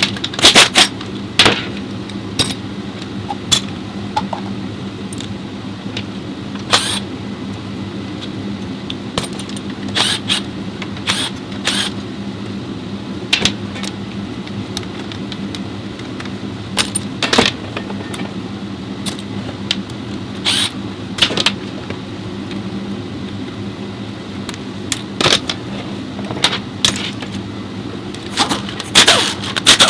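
Metal tools and parts clinking at irregular intervals over a steady low hum, as in hand work on a removed CVT transmission; the clinks cluster at the start and near the end.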